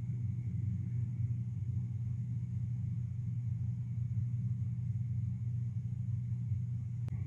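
Steady low hum of room tone, with a single faint tick near the end.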